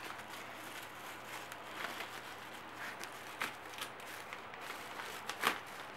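Bubble wrap and plastic packaging crinkling as it is handled and unwrapped, a run of faint scattered crackles with one sharper crackle near the end.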